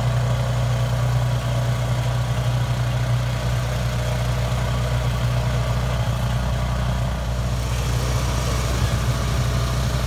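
Steady mechanical drone of a 1/8-scale rotary snowplow running as it clears snow from the rails, with a hiss that grows about eight seconds in.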